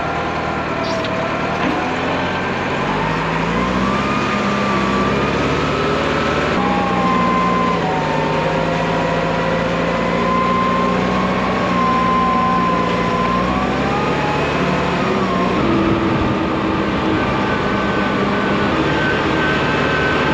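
Wheel loader's diesel engine running while the machine drives, heard from the driver's seat, with a whine above the engine. The engine note steps up and down several times as it changes speed.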